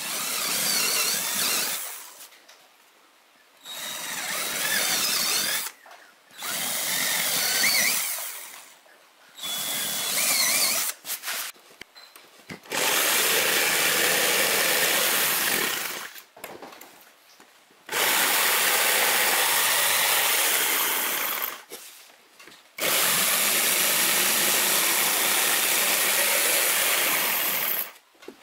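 Handheld electric drill boring holes into a plywood panel, running in a series of bursts with short pauses between them: about four short bursts, then three longer steady runs of several seconds each.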